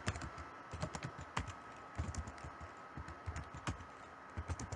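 Computer keyboard keystrokes: irregular typing in short runs of clicks with brief pauses between them.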